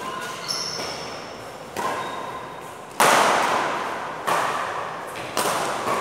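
Badminton rackets hitting a shuttlecock in a rally: about six sharp smacks a second or so apart, each ringing on in the hall's echo, the loudest about three seconds in.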